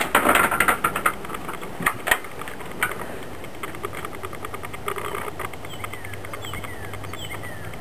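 A few clattering knocks in the first couple of seconds, as a screen door is passed and steps are taken. Then a steady low mechanical hum, with birds calling in short falling notes over it near the end.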